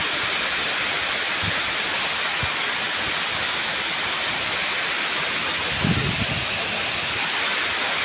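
Waterfall pouring onto rock and into a pool: a steady, even rushing hiss. A brief low thump about six seconds in.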